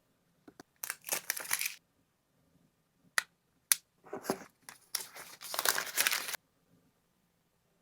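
Packaging of an Apple Vision Pro box being torn and crinkled open, in several short rustling bursts with a couple of sharp clicks between them and a longer tear near the end.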